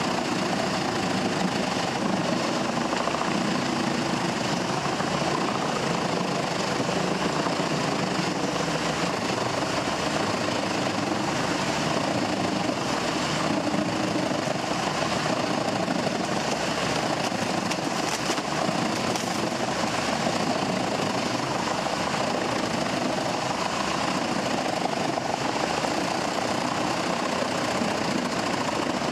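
Drum-type wood grinder running steadily, its engine and rotating bladed drum grinding wood fed in by the rollers.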